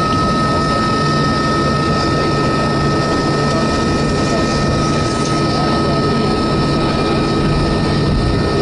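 Cabin noise of a Boeing 737-300's CFM56 jet engines at taxi power, heard from a window seat over the wing: a steady rumble with a high, unchanging whine.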